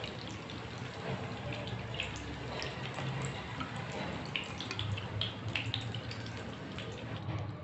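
Egg-coated potato tikkis shallow-frying in oil on low-medium heat: a steady sizzle scattered with small crackling pops.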